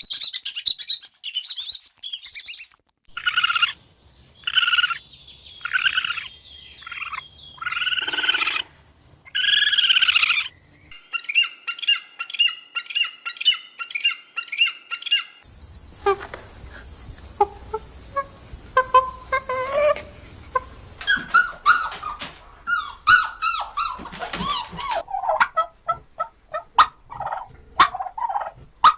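Birds calling in a string of separate short clips: high chirps, then a run of loud repeated calls, then fast repeated notes, then mixed calls over a steady high hiss.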